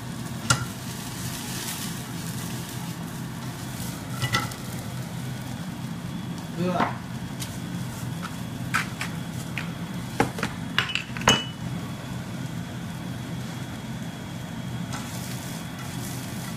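Mushrooms frying in a nonstick pan on a gas hob, a steady sizzle, with a handful of sharp clinks and knocks from the pan and utensils scattered through, the loudest about two-thirds of the way in.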